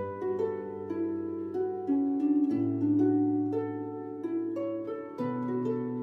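Background music: a gentle melody of plucked, harp-like notes that ring and fade, over a low held bass that shifts twice.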